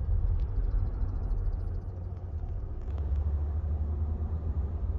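Low, steady rumble of a 2022 Volkswagen Polo 1.4 with seven-speed DSG being driven, heard from inside the cabin, with a faint fast ticking during the first couple of seconds.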